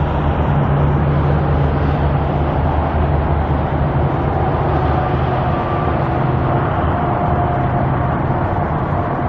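Steady road traffic noise, with the low hum of vehicle engines running underneath.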